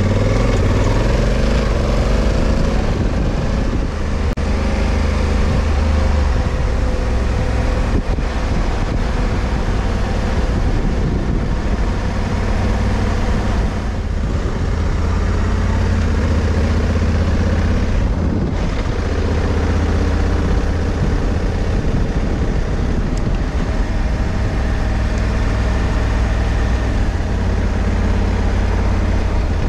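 Honda Africa Twin CRF1100L's 1084 cc parallel-twin engine running under way, mixed with steady wind and road noise, as the motorcycle gathers speed. The engine note rises and falls now and then as the automatic DCT gearbox shifts.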